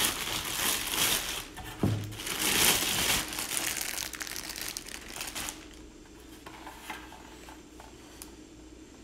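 Thin plastic packaging bag crinkling as the site light is pulled out of it, for about the first five seconds. After that come a few faint clicks.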